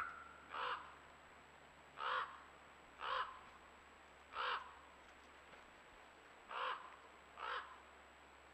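Crow cawing, about seven harsh caws spaced one to two seconds apart.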